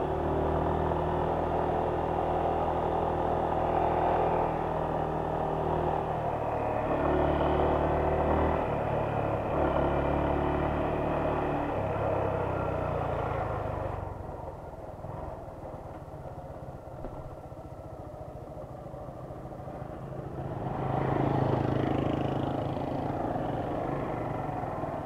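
Motorcycle engine running while riding, its pitch stepping up and down with throttle and gear changes. A little past halfway it drops to a quieter low running as the bike slows, then picks up briefly near the end.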